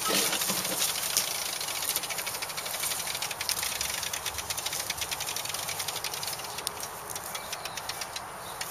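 Lawn mower running as it is pushed across grass, a steady fast rattling clatter.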